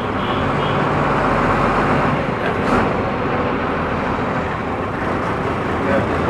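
Steady engine hum and road noise from inside a moving bus.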